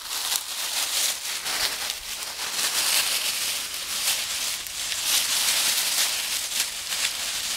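Dry fallen leaves crunching and rustling without a break as schipperke puppies scamper and tussle through them, in many quick crackles.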